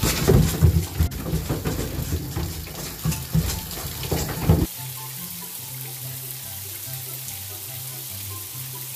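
Water running and splashing, loud and uneven, over background music; it cuts off suddenly about four and a half seconds in, leaving only the music.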